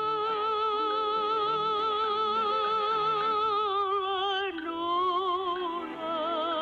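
A high female voice singing a long wordless note with wide vibrato, dropping to a lower note about four and a half seconds in, over soft musical accompaniment: part of a film's sung soundtrack.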